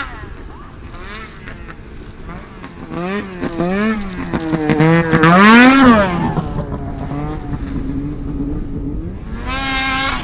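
Snowmobile engine revving: its pitch rises and falls several times, loudest about halfway through, then it settles to a steady note.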